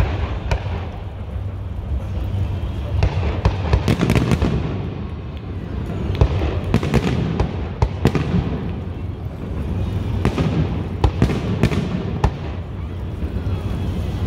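Aerial firework shells from a professional display bursting one after another, with sharp reports coming in clusters and some crackle between them.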